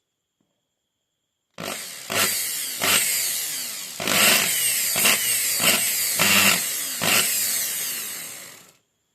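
Electric drill running on its repaired armature, revved in repeated bursts as the trigger is squeezed again and again, then spinning down near the end.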